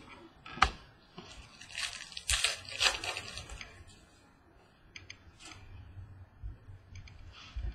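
Football trading cards being handled by hand: a sharp click about half a second in, then a crinkly rustle of cards and pack for about two seconds, and a few soft clicks later.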